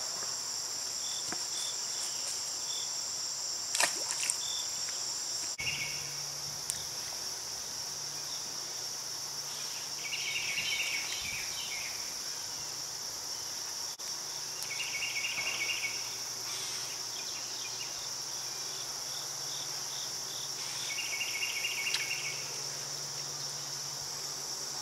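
Insects trilling in a steady, high, unbroken drone. Over it come three short bursts of rapid pulsed calls, about ten, fifteen and twenty-one seconds in.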